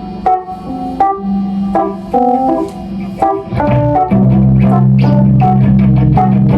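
Keyboard with an organ-like tone playing a run of short chords and notes, then a loud low chord held for about two seconds starting about four seconds in.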